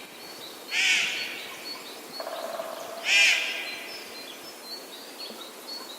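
Forest birds calling in spring: two loud, harsh calls, about a second in and about three seconds in, over faint high chirping that keeps going.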